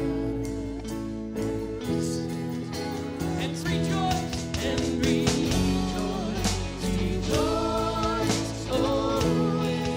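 Live worship band playing a song: a man singing with acoustic guitar, backed by electric guitar and a drum kit.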